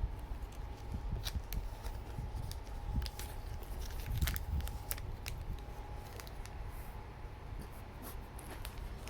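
Scattered small clicks and rubbing noises close to the microphone, over a faint steady hum.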